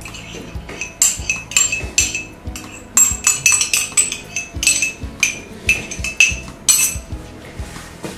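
A metal spoon scraping and tapping tomato paste out of a small ceramic cup: a run of sharp clinks, about three a second.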